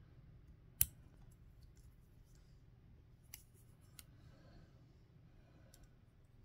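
Butterfly knife being opened by hand, its handles clicking: one sharp click about a second in, two lighter clicks a little past the middle and a faint one near the end.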